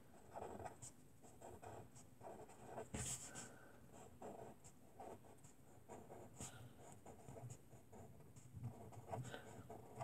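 Faint scratching of a pen writing on paper, in many short separate strokes with small pauses between them.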